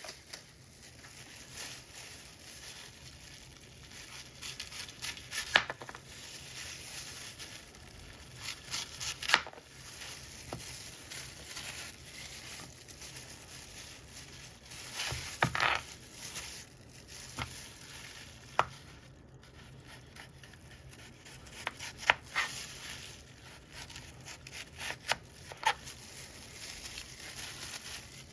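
Apple being cut with a knife: irregular crisp crunches and sharp clicks every few seconds, some in quick clusters, over a faint steady hiss.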